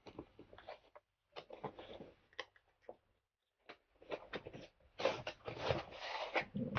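Cardboard packaging being handled: a box rubbed and shifted, then its inner box slid out of the outer sleeve, giving short scrapes and rustles that come thickest and loudest near the end.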